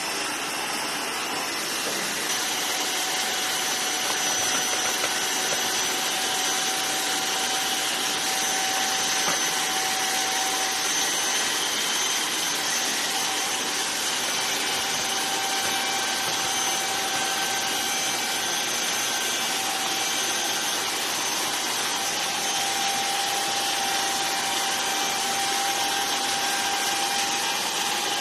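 Electric hair clippers running steadily while shaving a head, a continuous motor buzz with a thin high whine that wavers slightly in pitch.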